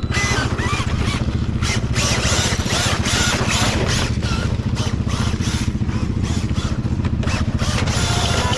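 A motorcycle engine idling steadily, overlaid by a radio-controlled monster truck driving over loose dirt in repeated bursts of hissing, scrabbling tyre noise.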